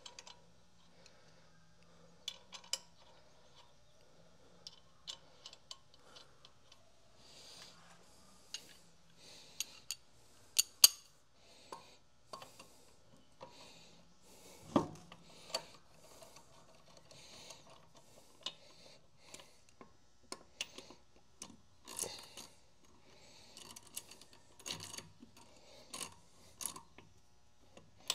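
Steel lug nuts being threaded onto a pickup's wheel studs and snugged with a hand wrench: scattered sharp metal clicks and clinks, with a dull knock about halfway through.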